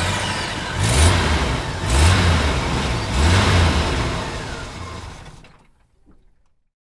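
Engine revving sound effect: three surges about a second apart, then fading out.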